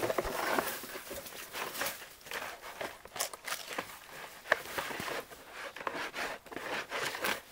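Footsteps crunching in dry brush and leaf litter, with irregular rustles and crackles of handling and a sharper click about four and a half seconds in.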